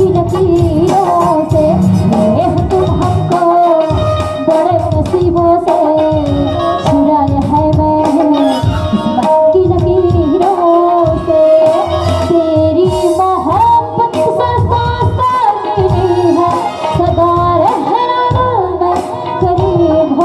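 Chhattisgarhi folk song: singing over a steady drum beat with melodic instrumental accompaniment.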